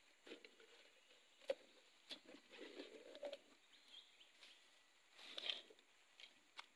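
Faint handling sounds of a rubber tapper's latex cup being emptied into a plastic bucket: small scrapes and knocks of the cup against the bucket, with one sharp click about a second and a half in. Near the end, short rustling scrapes as the cup is hung back on the rubber tree.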